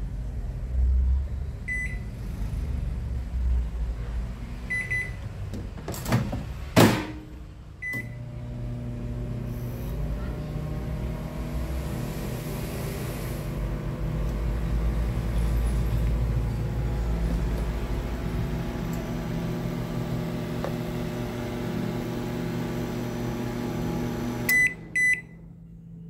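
Philco microwave oven with its cover off being set and run: keypad beeps and a couple of sharp clicks, then a steady hum while it cooks. The hum stops suddenly with two beeps near the end. This is a test run after the shorted door microswitch was repaired.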